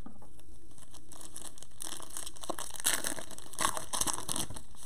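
Shiny wrapper of a Panini Prizm retail basketball card pack crinkling and tearing as plastic-gloved hands rip it open. It comes as a run of crackles starting about two seconds in, loudest just before the end.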